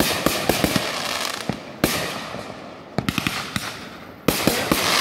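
Consumer aerial fireworks going off: four sharp bangs of bursting shots, each trailed by a hiss and a scatter of crackling pops.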